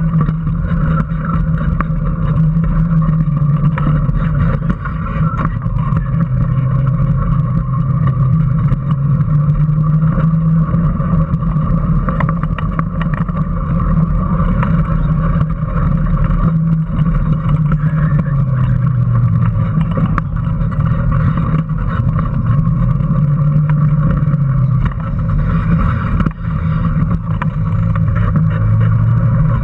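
Onboard sound of a small home-built electric Power Racing Series car driving on asphalt. The motor and drivetrain give a steady whine whose pitch dips and rises a few times with the car's speed through the corners, over road and wind noise.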